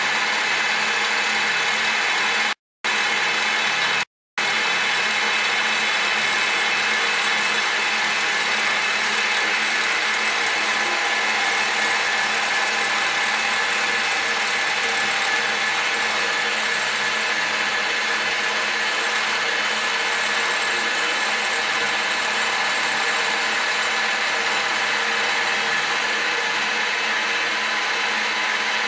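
TOS FN20 milling machine's spindle running with an end mill dry-cutting aluminium plate under CNC control: a steady machining whine with several high steady tones. The sound drops out completely twice, briefly, near the start.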